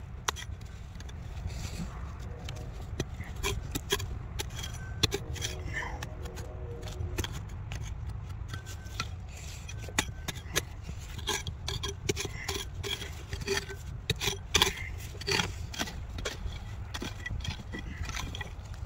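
Hand tools scraping and chipping at basalt to dig out a nodule, with irregular sharp taps and small rock fragments clinking.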